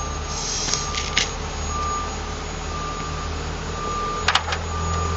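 A vehicle's reversing beeper sounds about once a second over a steady low engine rumble and hiss, with a few sharp clicks.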